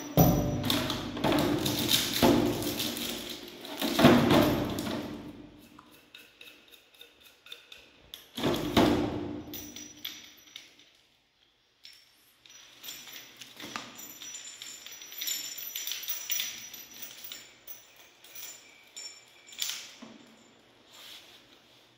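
Plastic packaging handled: a moulded plastic tray and cardboard box knocking and rustling while a toilet push shower and its coiled plastic hose are taken out. The knocks are loudest in the first few seconds and again around nine seconds in, then fade to faint clicks and rustles.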